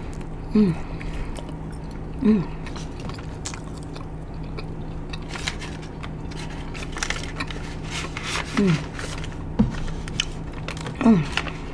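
Close-miked mouth chewing a fresh piece of grape bubble gum, with a steady run of wet smacks and clicks. Four short vocal sounds fall in pitch about half a second in, a bit over two seconds in, about eight and a half seconds in and about eleven seconds in.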